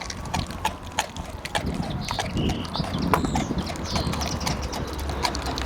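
American Staffordshire terrier gnawing a big raw cow bone close to the microphone: irregular sharp crunches and clicks of teeth on bone, with wet smacking.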